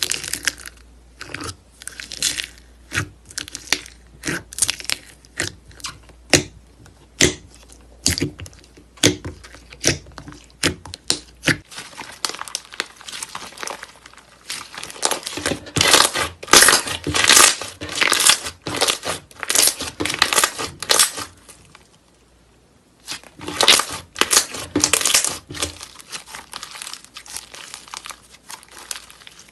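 Slime being squeezed and pressed by hand, giving sharp, separate pops of trapped air at first, then denser runs of crackling, with a short pause a few seconds before the end.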